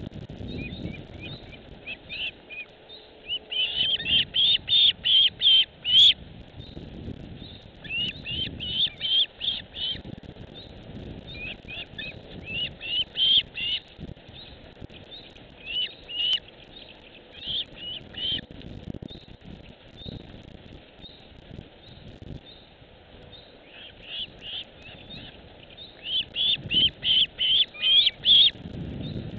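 A bird chirping in quick runs of high notes, about four or five a second, which come in several bursts separated by pauses.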